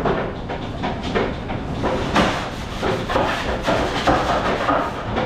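Busy restaurant kitchen clatter: irregular knocks and clanks of pans, trays and utensils over a steady background of kitchen noise.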